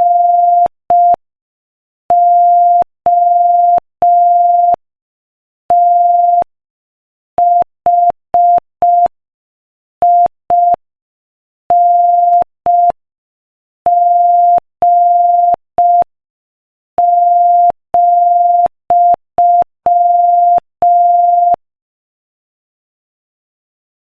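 Morse code at 5 words per minute: a single steady beep tone keyed on and off in short dots and long dashes, with silent gaps between letters and words.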